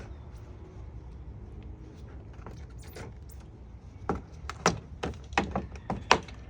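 Sharp clacks and knocks of hand tools and parts being handled on a car's front end, about eight in two seconds starting around four seconds in, over a low steady hum.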